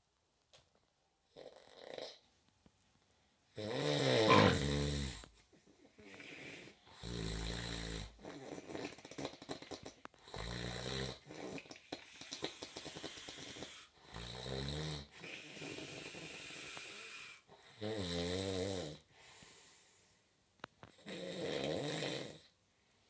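A sleeping person snoring loudly: six heavy, rasping snores about every three to four seconds, with breathy hissing exhales between them.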